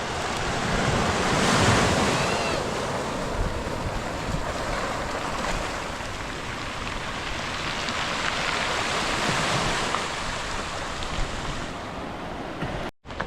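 Sea surf: waves washing in, swelling twice, with wind buffeting the microphone.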